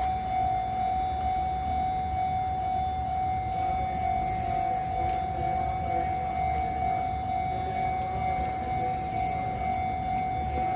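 A Sotetsu (Sagami Railway) level-crossing warning alarm sounding at one unchanging high pitch, over a low rumble.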